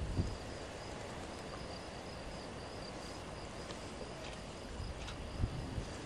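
Faint, steady insect chirping, high-pitched and evenly repeating, over a quiet outdoor background hiss, with a couple of soft knocks near the end.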